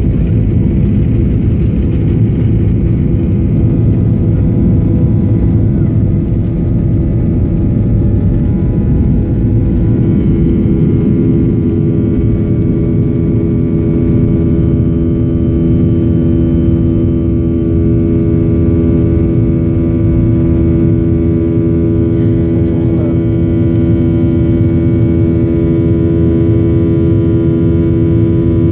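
Cabin noise of a Boeing 737-800: a steady low rumble with a stack of steady humming tones that grows stronger about ten seconds in. This is the strange engine noise the passenger had not heard before.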